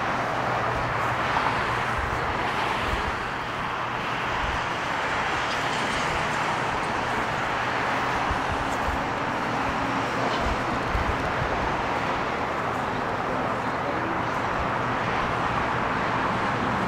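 Steady outdoor vehicle noise: a low running hum under an even hiss.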